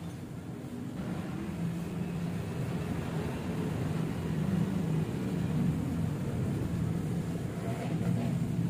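Minerva R150 Xrod motorcycle's single-cylinder engine running steadily, getting gradually louder; this is the rough-running engine under diagnosis.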